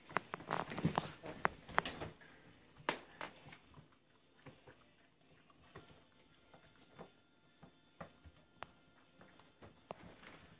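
Bernese mountain dog puppy nosing and licking at a lemon on a hardwood floor: scattered small clicks and taps from its claws and mouth, busiest in the first two seconds, then only a few faint ticks.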